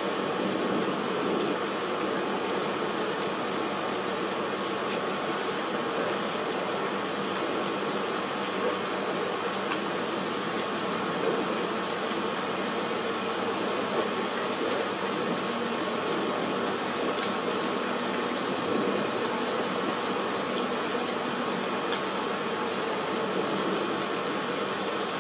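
Steady, even noise with a faint hum through it and no distinct events or thunder.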